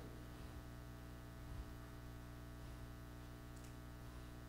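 Faint steady electrical mains hum with light background hiss: room tone from the sound system during a pause.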